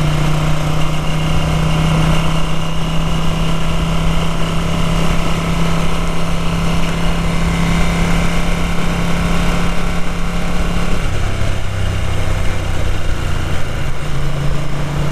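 Ducati 900 SS air-cooled V-twin running steadily under way, recorded from the rider's helmet camera; its pitch drops about eleven seconds in and rises back near the end. The carburetted engine has chronic hiccups and carburettor trouble, which the owner is taking it to the workshop for.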